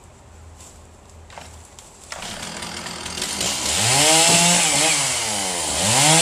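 Chainsaw starting up about two seconds in, then revving up and dropping back, twice.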